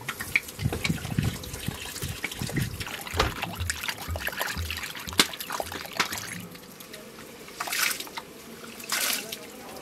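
Water poured from a clay jug trickling and splashing into a ceramic bowl of rice, then hands swishing and rubbing the rice in the water as it is washed, in a few sloshing bursts later on.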